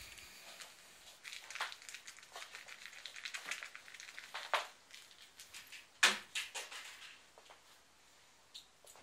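A small crumpled green object crinkled and crushed in the hand, giving a run of irregular crackles with one sharper, louder crackle about six seconds in.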